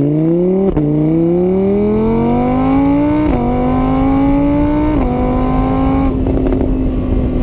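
A motor vehicle engine accelerating through the gears: its pitch climbs, drops sharply at each of three shifts, then holds steady. It cuts off abruptly near the end.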